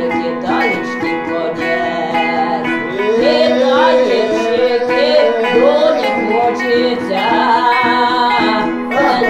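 Russian folk dance song sung by a woman over a rhythmic plucked balalaika accompaniment.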